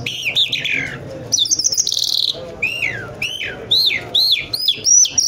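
Caged lark singing: a fast, varied run of high whistled chirps and slurred notes, several sliding sharply down in pitch, with a short buzzy trill about two seconds in.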